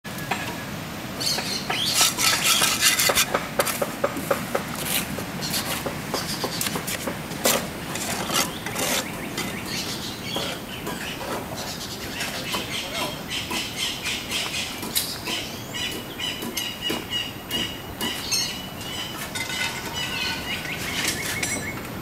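Scattered sharp knocks and clicks, densest about two to three seconds in, with short high chirps repeating through the second half.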